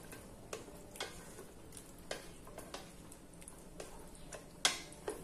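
A plastic spatula stirring a thick tomato sauce in an aluminium pot, knocking against the pot's side about twice a second, with the loudest knock near the end.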